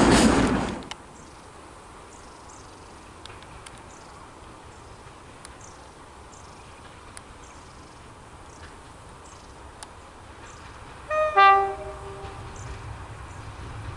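A diesel locomotive's two-tone horn sounds about eleven seconds in: a short high note, then a longer, louder low note. Before it, a passing train's rumble fades out within the first second, leaving faint birdsong. Near the end, the low rumble of the approaching locomotive's engine begins to rise.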